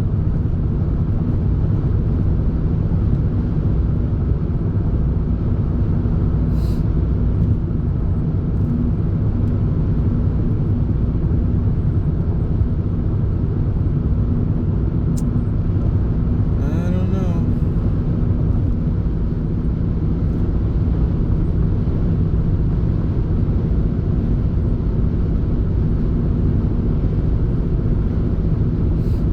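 Steady road and engine noise inside a moving car's cabin, with a brief wavering tone about 17 seconds in.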